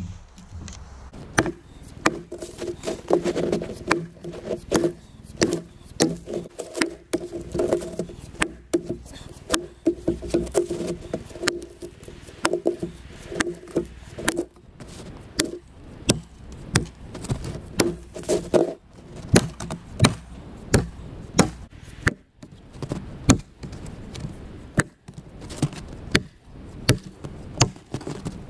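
Axe chopping into a felled log to buck it through: a steady series of sharp thwacks of the steel head biting into the wood, about one or two a second.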